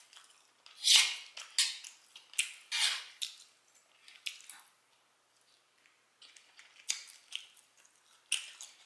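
Close-miked chewing of meat with wet mouth smacks, in irregular bursts that are loudest in the first three seconds and sparser after.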